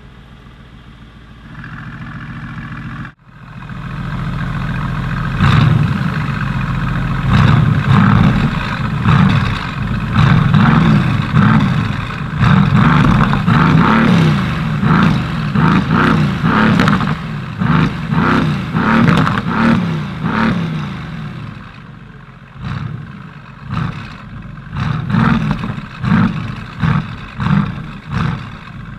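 Mercedes-AMG GT's 4.0-litre twin-turbo V8 through a Stanic Performance exhaust, revved in the stationary car: steady running for the first few seconds, then a long series of quick rev blips, each rising and falling. Near the end the blips come as short, sharp separate stabs.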